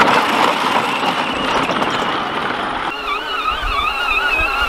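Ride-on toy tractor driving, its plastic wheels rolling with a dense, even rumble. After a change about three seconds in, a wavering whine sits over a low rumble.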